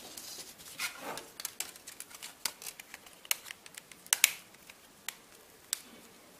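Plastic back cover of a Samsung Galaxy S II being handled and snapped back onto the phone: a run of small irregular plastic clicks and taps, the loudest a little after four seconds.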